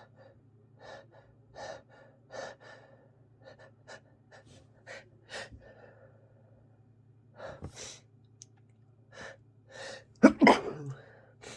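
A person with a congested head cold taking a run of short, sharp breaths and gasps, then sneezing loudly about ten seconds in.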